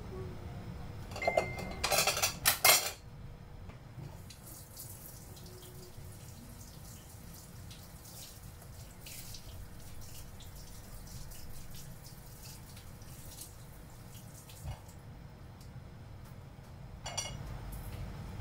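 Dishes clattering: a plate and utensils knocking on the counter in a quick cluster about a second in, with another knock near the end. Between them, a low steady hiss from the gas burner under the heating wok, with sparse faint ticks and a faint steady hum.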